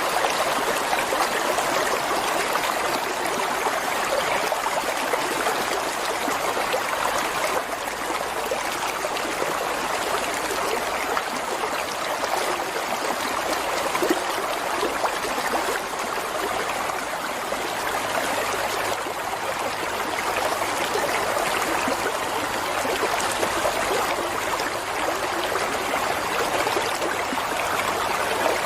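Water flowing steadily over rocks in a stream, a continuous rushing and babbling.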